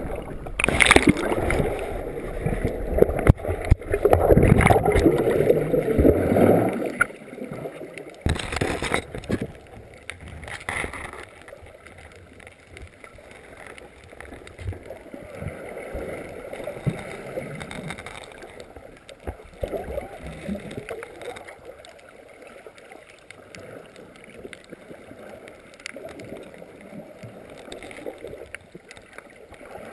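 Water heard through a GoPro's waterproof housing as it plunges under: churning bubbles and rushing water for the first several seconds, a couple of sharp knocks, then a quieter muffled underwater rumble as the camera settles among coral branches.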